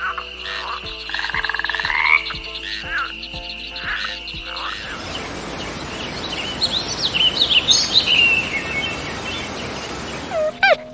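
Animal calls: for about five seconds, repeated short calls over a steady high trill, then a hissing chorus laced with quick high chirps until near the end.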